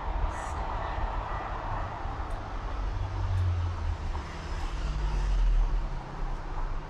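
Street traffic: vehicles passing with a low engine rumble over steady road noise, swelling twice.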